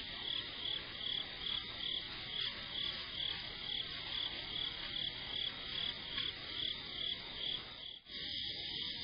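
Night insect chirping in a steady rhythm, about two high chirps a second, over a low background hiss. The chirping breaks off briefly about eight seconds in.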